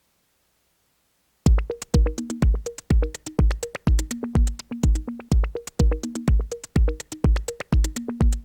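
Near silence, then about a second and a half in an electronic music track starts: a drum-machine beat with a kick about twice a second, over short repeating synthesizer notes.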